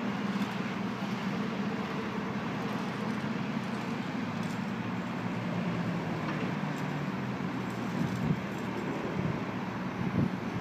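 Liebherr A 904 C Litronic wheeled excavator's diesel engine running with a steady hum, mixed with the wash of passing road traffic. Wind buffets the microphone a few times near the end.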